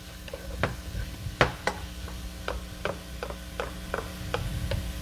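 Shrimps cooking in coconut oil in a pot with garlic and onion: irregular sharp pops and clicks, a few each second, over a steady low hum.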